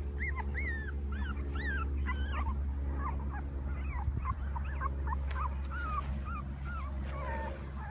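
A litter of two-week-old miniature schnauzer puppies whimpering and squeaking, with many short, high, arching cries overlapping several times a second. They are unsure about being outside for the first time.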